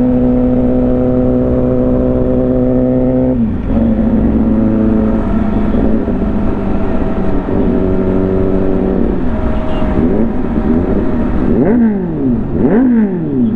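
Motorcycle engine running steadily while riding. Its pitch steps down about three and a half seconds in, and near the end it falls and rises a couple of times.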